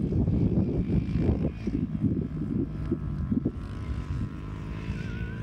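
Distant dirt bike engines droning steadily, with gusty wind buffeting the microphone for the first three seconds or so.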